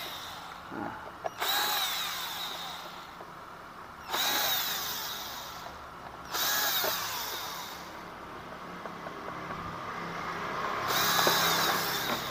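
Electric power tool, a drill or impact driver, run in several short bursts of a second or two each, its whine rising and falling in pitch: backing out the bolts of a scooter's CVT cover.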